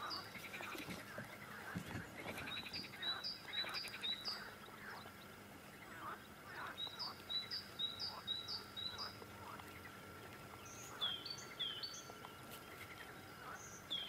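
Small birds singing: several bouts of quick, repeated high chirps, about three or four a second, with a different, lower call about eleven seconds in.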